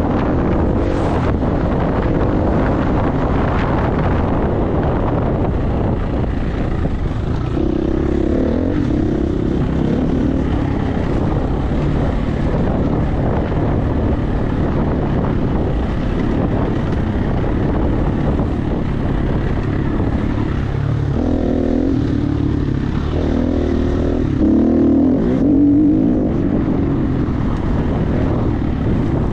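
Enduro motorcycle engine running continuously under load, its revs rising and falling as it is ridden, with a harder burst of revs near the end.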